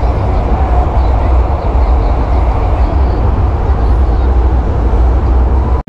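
Loud, steady rumble and rushing noise of a vehicle in motion, with a heavy low rumble throughout; it cuts off suddenly at the end.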